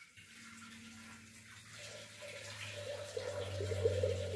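Water trickling and dripping as soaked chana dal is scooped by hand in a steel bowl, getting louder in the second half, over a steady low hum.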